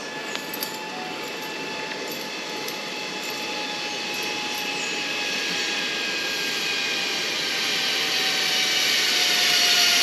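Zipline trolley running along the steel cable: a steady whirring rush with a high whine that slowly drops in pitch and grows louder toward the end.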